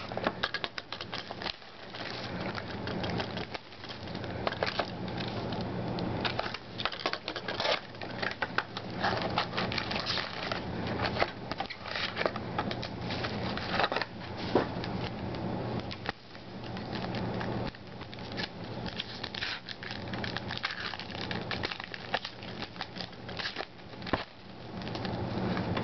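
Crinkling and tearing of a 2008 Upper Deck Icons trading card box's wrapping and a foil card pack being opened by hand: an irregular crackle of many small clicks.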